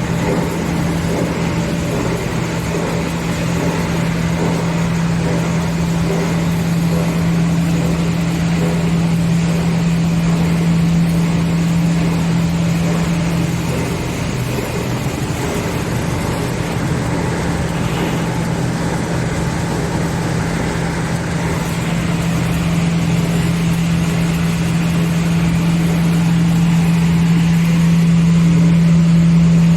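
V-S35 copper wire granulator running: a steady, loud motor hum over dense mechanical churning noise. The hum briefly falters about halfway through, then carries on.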